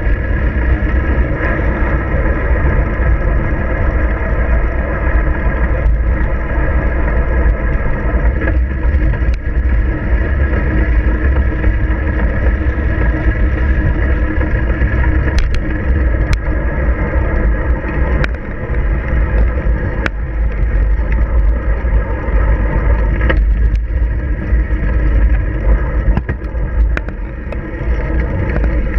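Rumble from a handlebar-mounted GoPro on a moving bicycle: steady, loud low-pitched noise from wind and road vibration coming through the mount, with a few sharp clicks and rattles as the bike goes over bumps.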